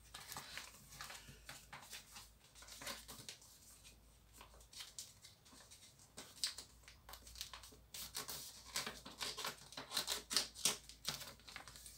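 Catalogue paper rustling and crinkling as a page is folded and creased by hand, in scattered soft crackles that grow busier near the end.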